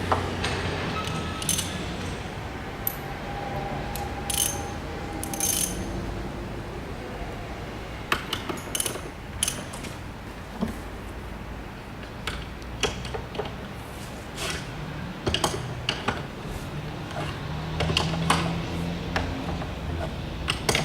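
A Cam-Tite bolt with its special washer being tightened with a hand ratchet: irregular metallic clicks in short runs, with pauses between, over a faint low hum.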